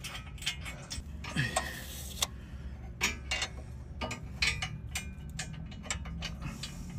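Irregular light metallic clicks and clinks of bolts being fitted by hand into a steel sump bash plate and its mounts, over a low steady hum.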